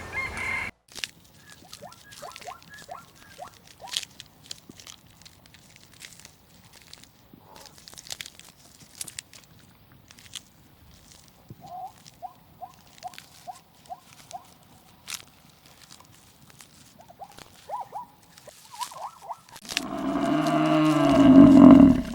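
A cow mooing: one long, loud, low call near the end. Before it comes a long quieter stretch of scattered crunching and clicking, with a few short runs of quick repeated high notes.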